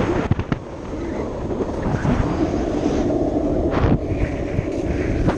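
Lie-down downhill board's wheels rumbling steadily over asphalt at speed, with wind buffeting the microphone and a few sharp knocks from the board, one shortly after the start and one about four seconds in.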